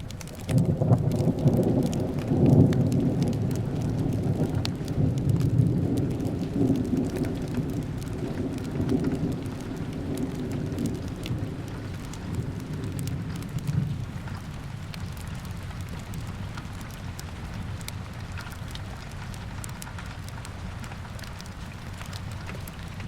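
Steady rain with a roll of thunder that breaks in sharply about a second in, swells, then rumbles away over the next dozen seconds, leaving the rain alone.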